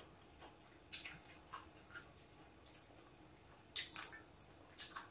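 Faint eating sounds of a person chewing a mouthful of cha-om and chicken curry: scattered wet mouth clicks and smacks, the most distinct about a second in, near four seconds and just before the end.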